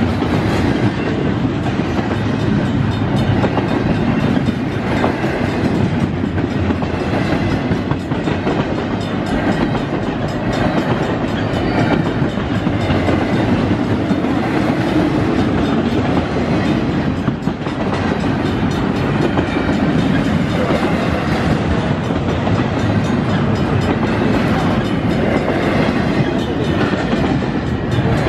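Double-stack container well cars of a Canadian National freight train rolling past, steel wheels running on the rails with a steady loud rumble and rattle.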